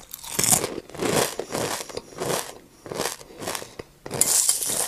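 A toddler chewing a crunchy snack close to the microphone: repeated crunches, with a louder, longer one near the end.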